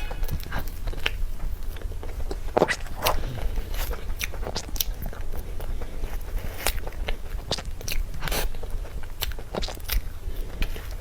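Close-miked mouth sounds of eating cream cake: chewing with irregular wet, sticky clicks every second or so.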